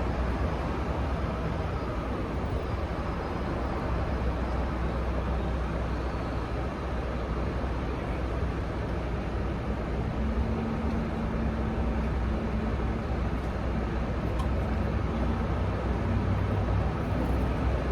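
Steady road traffic noise with a low rush of wind, as heard riding a bicycle along a road, with a faint engine hum about ten seconds in.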